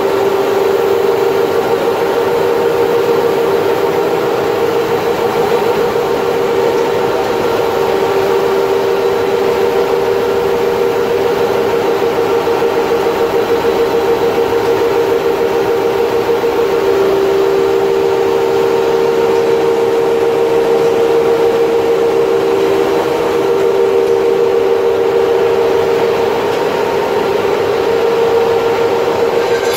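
Corn-snack production line machinery running: a steady mechanical drone with two close hum tones that trade strength now and then, over a constant machine noise.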